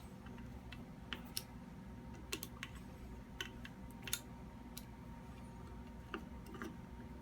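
Faint, scattered small metal clicks and ticks of a tool working the barrel clamp screws as they are tightened a little at a time, alternating between screws.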